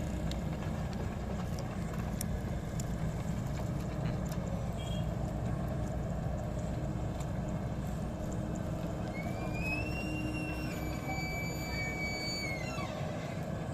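Excavator's diesel engine running steadily as a low rumble. From about nine seconds in, a high whistling tone rises, holds for about three seconds and drops away.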